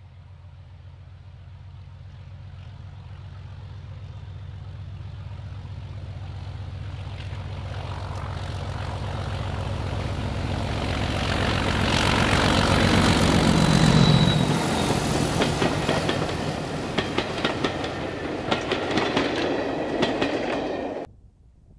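A Class 31 diesel locomotive, its English Electric V12 engine working, approaches hauling coaches and grows steadily louder until it passes about 14 seconds in. Then the coaches run by with a fast clatter of wheels over the rail joints, cut off suddenly a little before the end.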